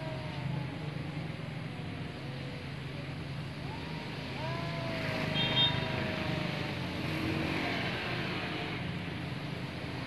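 Two stray tabby cats caterwauling at each other in long, wavering cries, one drawn out through the first couple of seconds and another from about four seconds in: the yowling of cats wanting to mate. A brief high chirp comes about five and a half seconds in, over a steady low hum.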